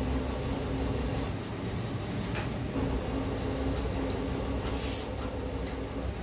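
A steady low machine hum with a few light knocks, and one short hiss of a trigger spray bottle being squeezed about five seconds in.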